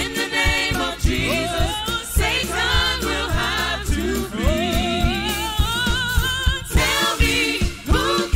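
Gospel song sung by a group of women singers with a live band: voices sliding and holding long notes over a steady drum beat and bass.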